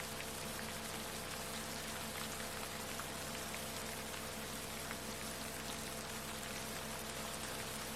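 Steady rain with a patter of scattered drops, layered with several steady low tones held unchanged: the Rife frequencies of a sound-healing track.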